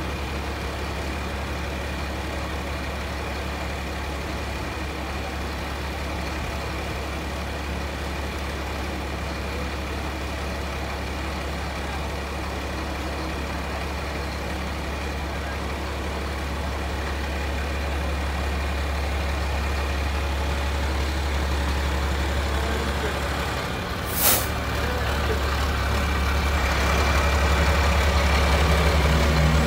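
Crane truck's diesel engine running steadily. About 24 seconds in there is a short, sharp burst of hissing air, and after it the engine runs louder.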